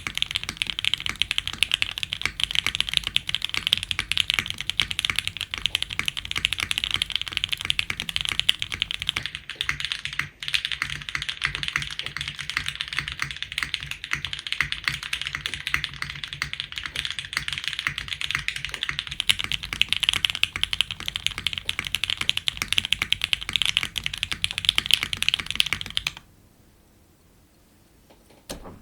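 Fast continuous typing on an OG F1-8X custom mechanical keyboard with broken-in, lubed Gateron Oil King linear switches, a full FR4 plate on poron gasket mounting, and GMK keycaps: a dense run of keystroke clacks. The typing stops about two and a half seconds before the end.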